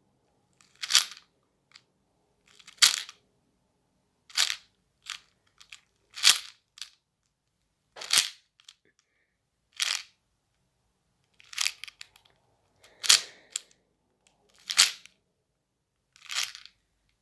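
4×4 Rubik's cube layers being turned one move at a time, each turn a sharp plastic clack, about a dozen spaced roughly every second and a half, while a parity algorithm is carried out.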